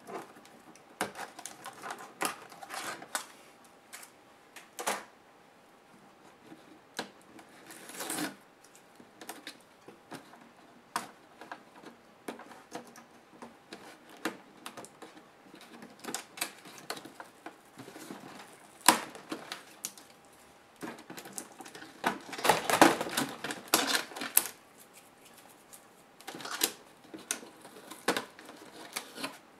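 Plastic parts of an Acer Aspire 5315 laptop clicking, tapping and rattling under the hands as the keyboard is lifted off and internal cables and connectors are worked free, in irregular sharp clicks. There is a longer burst of clatter about three-quarters of the way through.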